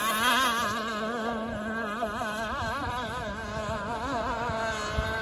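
Enforcer Stingray RC hydroplane's motor whining at speed, its pitch wavering up and down as the hull skips across the water. It fades a little at the start as the boat runs away, then holds steady.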